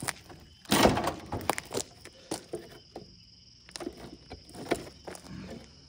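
Wooden pine target boards being handled and knocked against each other: a loud wooden clatter just under a second in, then scattered knocks and scrapes.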